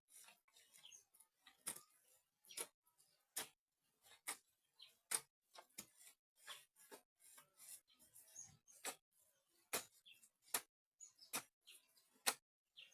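Faint, irregular sharp clicks and taps, roughly one or two a second, against near silence.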